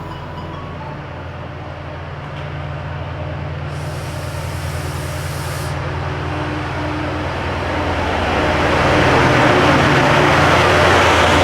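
Class 68 diesel locomotive's Caterpillar V16 engine running with a steady low hum that grows louder. From about two-thirds of the way through, a rising rush of wheel and rail noise joins it as the train draws closer or picks up speed.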